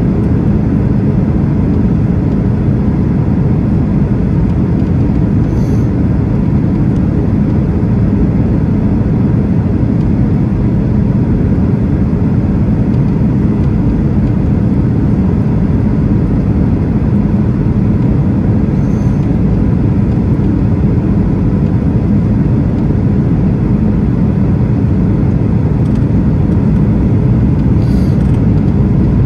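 Boeing 737-900 cabin noise on approach, heard from a window seat by the wing: a steady low roar of the engines and rushing air past the extended flaps.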